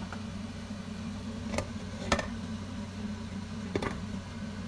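A glass pan lid clinking against the rim of a frying pan as it is set on, making three sharp clicks about a second and a half in, at two seconds and near four seconds, the middle one loudest. A steady low kitchen hum runs underneath.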